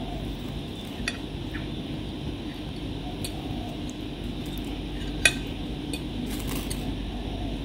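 Knife and fork clinking and scraping on ceramic plates, a few scattered clinks, the sharpest about five seconds in, over a steady background hum.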